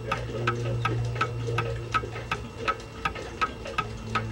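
Brass mechanical clock movement ticking steadily, a bit under three even ticks a second: the escapement of a running clock.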